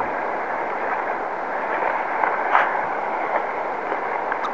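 Shallow beach surf washing in: a steady rush of foaming water.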